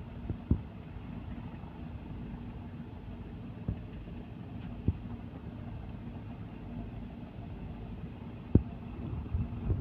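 Diesel engine of a river passenger launch running steadily, a low rumble with a steady hum over it, broken by a few short sharp knocks.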